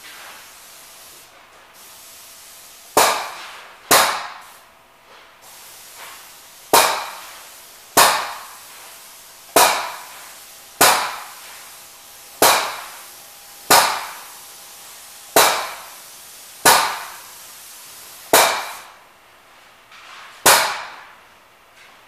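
Pneumatic airless paint-sprayer pump cycling while primer is sprayed: a sharp pop with a short hissing tail at each stroke changeover, about one every second and a half, starting about three seconds in.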